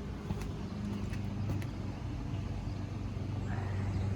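Honda GX390 single-cylinder four-stroke engine running steadily on a gas pressure washer, with a hiss of spray over it and a few light clicks in the first two seconds.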